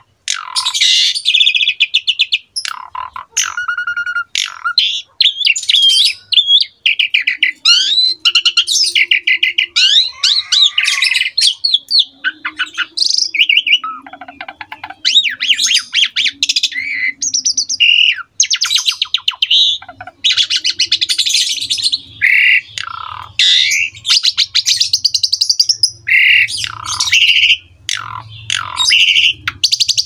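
Asian pied starling (jalak suren) in full, continuous song: a varied stream of whistled glides, rapid trills and harsh chattering squawks with only brief pauses, rich with mimicked phrases.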